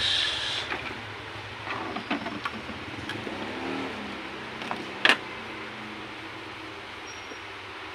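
Scattered plastic and metal clicks and knocks as an induction-motor pressure washer's motor and pump unit is handled and lifted out of its plastic housing during disassembly, with one sharp knock about five seconds in, over steady background noise.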